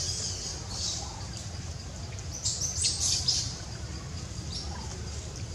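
Newborn long-tailed macaques giving short, high-pitched squeals, loudest in a quick cluster near the middle, over a low, steady background rumble.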